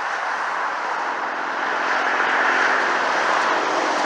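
A truck driving past on the road, its engine and tyre noise swelling as it comes nearer, without sounding its horn.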